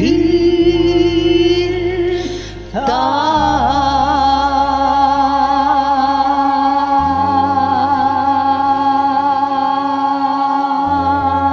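A man and a woman singing a Tagalog ballad as a karaoke duet over a backing track. They hold one note until about two seconds in, then, after a short dip, sing a long final note with vibrato from about three seconds in.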